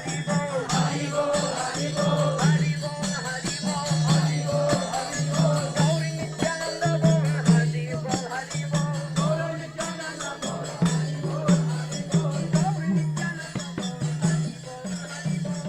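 Congregational kirtan: a group of devotees singing and chanting to a steady beat of mridanga drums and the jingling clash of kartal hand cymbals.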